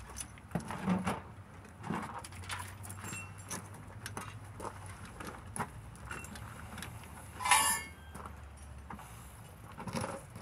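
Hoist chain clinking and rattling with scattered metal knocks as the engine hangs from a wheeled engine hoist and is shifted. A louder, sharper clatter comes about seven and a half seconds in.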